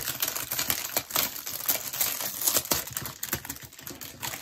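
Plastic packaging bag crinkling and crackling in a run of quick, irregular crackles as hands pull at it to open it, with a short knock near the end.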